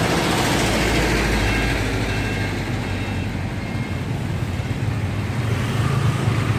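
Street traffic: a motor vehicle's engine running close by with a steady low hum, over a broad wash of road noise.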